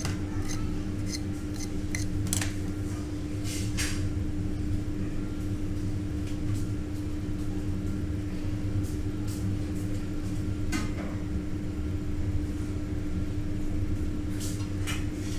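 Steady low hum with a constant tone, under a few light, sharp clicks and taps from handling a blade, a wooden skewer and thin raw potato slices.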